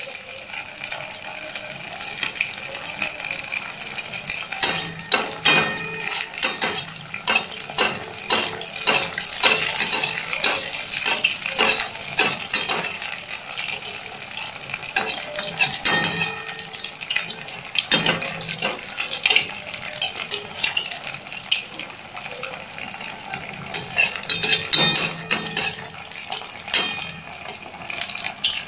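Malpua batter deep-frying in hot oil in a metal kadai: a steady sizzle with frequent crackles and pops, and a perforated metal slotted spoon clinking against the pan now and then.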